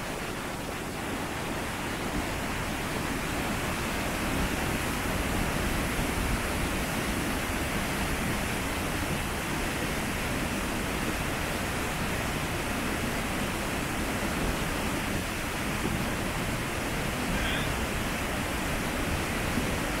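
Steady rush of a tall mountain waterfall, water falling about 100 m, getting a little louder over the first couple of seconds.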